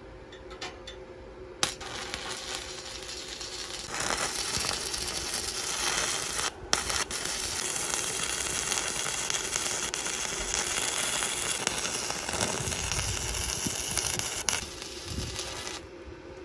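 Stick-welding arc burning an E6013 electrode: struck with a sharp click near the start, then a steady crackle and sizzle that grows louder after a few seconds, breaks off for an instant midway, and stops shortly before the end.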